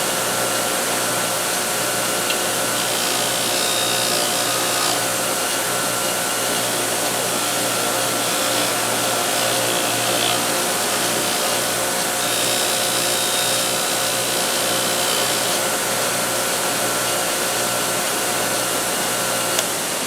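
Bench grinder running steadily with a motor hum, as a chrome ratchet is held against its spinning wire or fiber wheel to clean off rust and polish it; the grinding hiss rises twice, about three seconds in and again about twelve seconds in, while the work touches the wheel.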